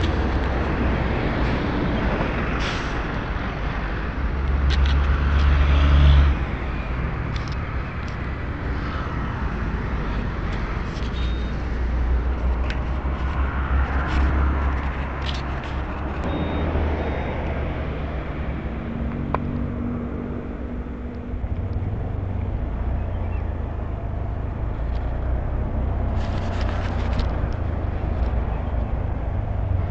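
Motor scooter running while being ridden, with a strong low rumble of engine and road noise that swells about five seconds in.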